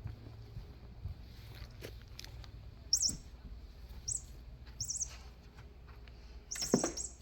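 Short, very high bird-like chirps, four of them spread over several seconds; the last one is longer and the loudest.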